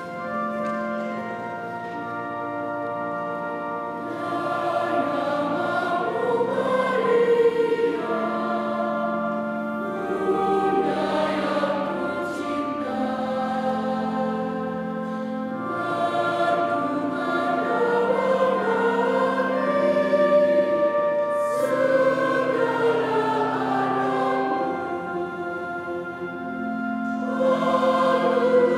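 Mixed choir of men and women singing a hymn in two parts, over keyboard accompaniment with long held notes.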